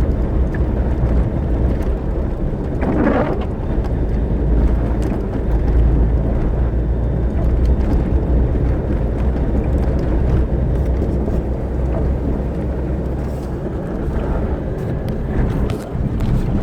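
Blizzard wind buffeting the microphone as a steady low rumble, with a brief louder swell about three seconds in.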